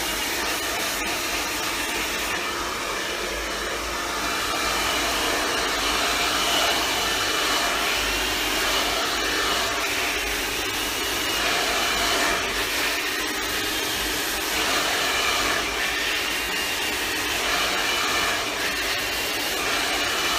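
Handheld hair dryer blowing steadily during a blow-dry with a round brush. Its rush of air swells and eases slightly as it is moved along the hair.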